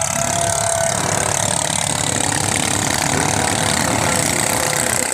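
Ketinting longtail boat engines running, a steady loud buzz of rapid firing pulses.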